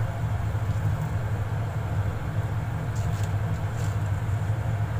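A steady low rumble, with a few faint light clicks about three to four seconds in as mushrooms are dropped into the pot of stock.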